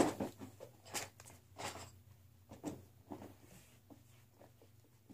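Faint, scattered rustles and light knocks of someone rummaging for a marker, a handful of short sounds spread a second or so apart.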